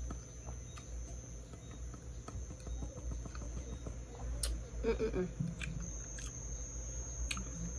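Close-miked chewing of food, with scattered short wet mouth clicks. A steady high-pitched tone and a low hum run underneath, and there is a brief murmur about five seconds in.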